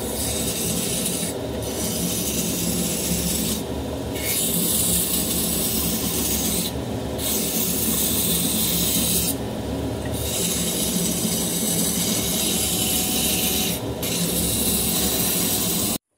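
A sashimi knife's blade held against a water-fed electric rotary whetstone: a harsh, steady grinding scrape over the machine's low motor hum, widening the knife's bevel. The scrape eases briefly five times as the blade is lifted and repositioned, then stops suddenly just before the end.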